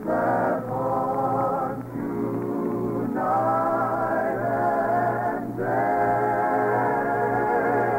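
Choir singing long held chords with musical accompaniment, in phrases broken by short pauses about two, three and five and a half seconds in. Old, narrow-band radio recording that sounds muffled.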